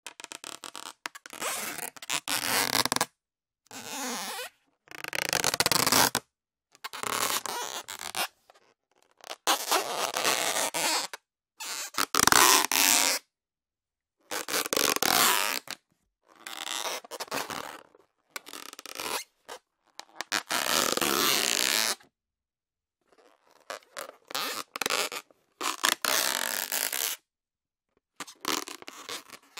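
Inflated rubber balloon being rubbed, squeaking and creaking. More than a dozen separate rubs, each one to two seconds long, with silent gaps between them.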